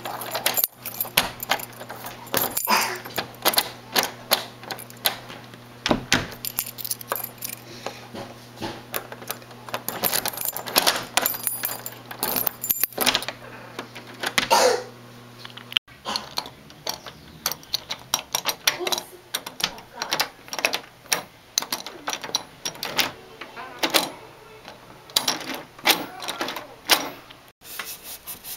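Metal door-lock hardware and keys clicking, clacking and rattling irregularly as a newly installed keyed door lock is worked.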